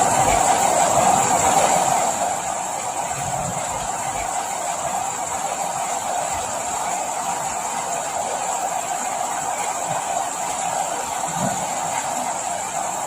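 Steady rain, an even hiss that drops a little in level about two seconds in and then holds steady.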